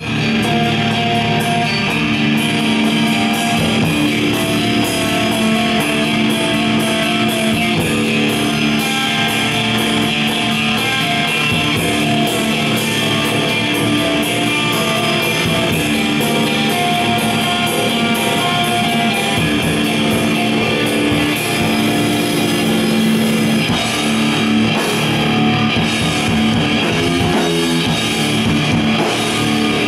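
Rock band playing live at full volume: electric guitar, bass guitar and a drum kit with steady, regular cymbal hits.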